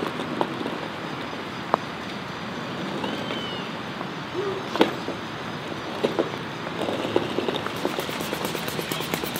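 Steady rain falling on pavement, an even hiss with scattered sharp drips and knocks.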